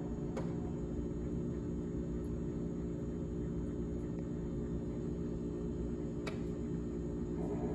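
GE refrigerator running, a steady hum of several low tones over a low rumble, with two faint clicks.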